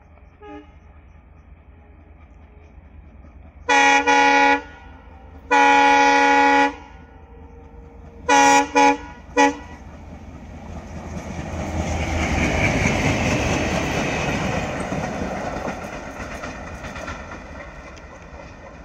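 Diesel locomotive pair at the head of an Indian Railways freight train sounding its multi-tone horn: two long blasts about 4 and 6 seconds in, then three short ones. The locomotives and wagons then pass close with a swelling rumble and clatter of wheels on the rails, loudest a few seconds later and then fading.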